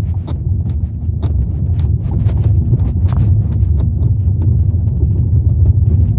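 Lada Vesta driving on a rough road, heard inside the cabin: a steady low rumble of road and tyre noise, with irregular light clicks and knocks from the body and trim over the bumps.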